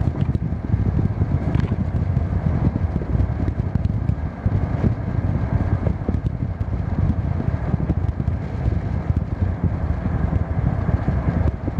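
Steady road noise heard from inside a moving car: a low rumble of engine and tyres with some wind noise.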